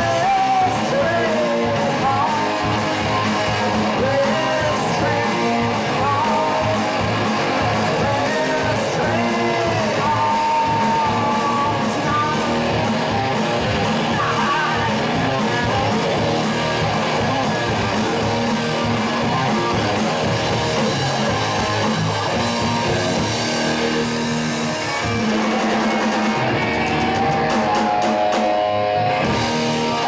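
Live rock band playing: distorted electric guitars, bass guitar and drums, with a male voice singing in places.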